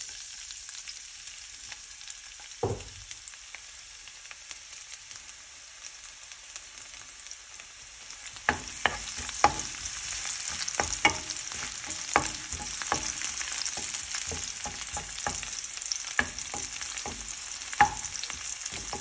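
Chopped garlic sizzling in hot oil in a nonstick pan, the start of sautéing it to a light brown. There is a single knock about three seconds in. From about halfway on, a wooden spatula stirs the garlic, clicking and knocking against the pan, and the sizzle grows a little louder.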